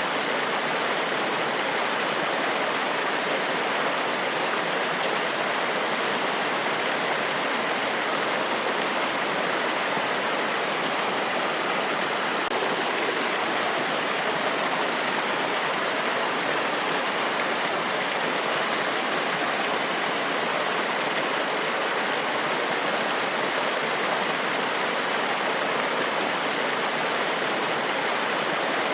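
Forest waterfall: water pouring over rocks in a steady, unchanging rush.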